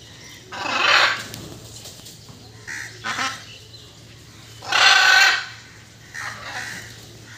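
Indian peafowl calling: four harsh, honking calls, loud ones about a second in and about five seconds in, with weaker ones between and near the end.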